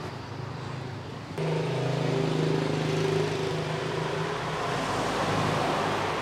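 Steady road traffic noise with a low engine hum, stepping up suddenly in loudness about a second and a half in.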